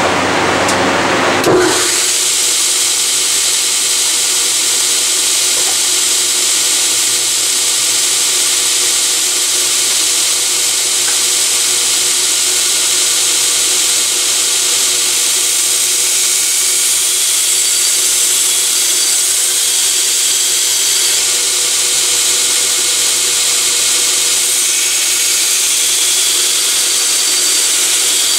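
Belt grinder running with a steel knife blade held against the sanding belt: a steady, high grinding hiss over the machine's hum. The sound changes about two seconds in, from a fuller rumble to the steady hiss.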